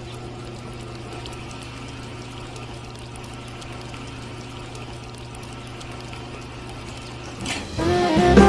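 Steady hum of a small motor with water pouring. Music comes in loudly near the end.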